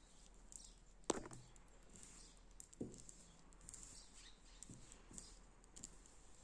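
Near silence with soft rustling and a few light knocks as hands handle crocheted cord on a tabletop. The loudest knock comes about a second in, another a little before three seconds, then fainter taps.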